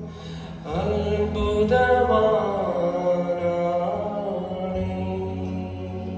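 Mixed children's and adults' choir singing a Malayalam worship song over a steady electronic keyboard accompaniment.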